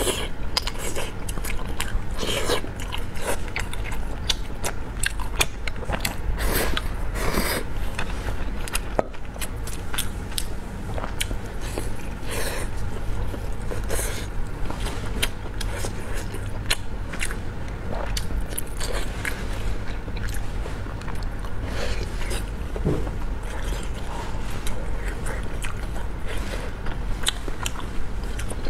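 Close-miked mouth sounds of a person biting and chewing soft braised pork belly and rice: wet smacks and little clicks, several a second.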